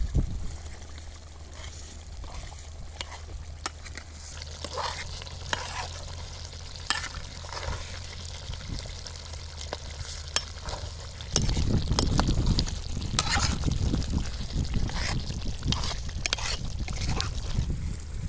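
Metal ladle stirring a large aluminium pot of steaming chicken and brinjal curry, with scattered sharp clinks of the ladle against the pot. A low rumble comes in about eleven seconds in and stays to the end.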